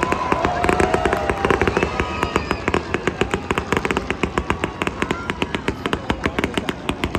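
Fireworks crackling: a dense, rapid run of many small sharp bursts, several each second, from a crackle or cake-type effect.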